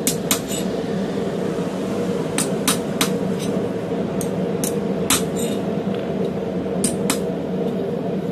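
Hand hammer striking a hot D2 steel straight-razor blank on a flat steel tool top: about a dozen light, irregular strikes, often in quick pairs or threes, over a steady low hum. This is the last forging heat, with the blade being worked straight.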